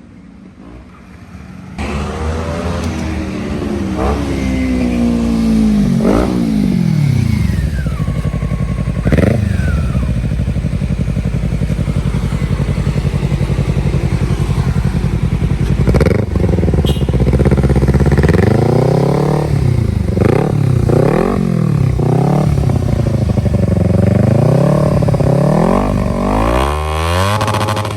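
Kawasaki Z250 / Ninja 250 parallel-twin engine through a Two Brothers aftermarket exhaust. It starts loud about two seconds in and revs up and down repeatedly, holding steadier in the middle, then comes several quick rev blips near the end.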